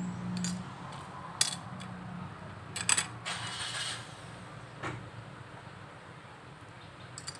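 Sharp clicks and rattles of small plastic and metal parts as a Geek Vape Obelisk 200 vape mod is handled and reassembled. The loudest come about a second and a half and three seconds in, over a steady low hum.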